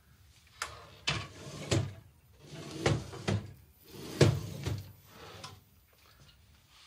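Knocks and clunks of a Makita slide miter saw's head being moved by hand along its slide rails, with the saw switched off. Eight or so separate knocks come unevenly over the first five seconds, then they stop.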